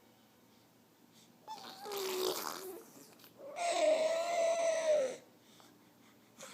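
A baby blubbering his lips with his voice, a buzzing, voiced lip raspberry. There are two: a short one falling in pitch about a second and a half in, and a longer, louder one around the middle.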